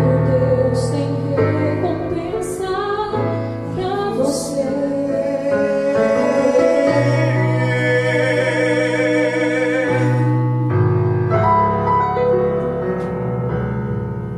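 Female and male voices singing the closing lines of a gospel ballad over Casio electronic keyboard chords, ending on a long held note with vibrato that stops about ten seconds in. The keyboard then plays on alone, fading toward the end.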